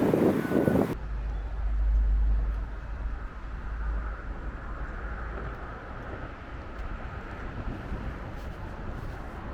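Wind buffeting the microphone, cut off abruptly about a second in. It gives way to the steady low rumble of a distant jet airliner's engines, with a faint whine above it.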